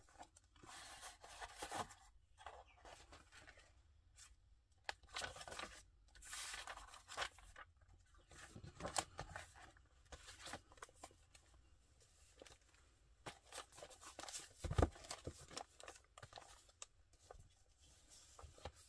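Paper pages and card of a handmade journal rustling and flapping in irregular bursts as they are handled and leafed through, with one louder thump about three-quarters of the way through.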